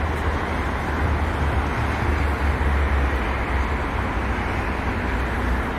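Steady road traffic noise from cars driving along a wide multi-lane city avenue, with a continuous low rumble.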